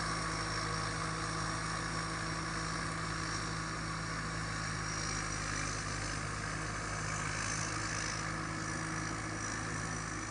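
Thai Seng rice combine harvester running steadily at work, its engine giving an even drone with a constant tone.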